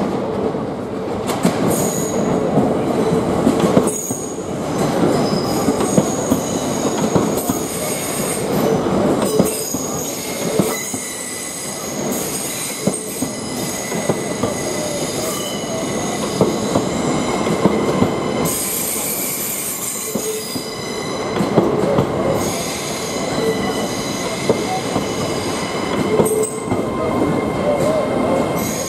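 LNER Azuma (Hitachi Class 800-series) train pulling slowly into a curved platform: the rumble of the passing carriages is laced with a high wheel squeal that swells and fades as the flanges grind on the curved rail, with a few sharp clicks.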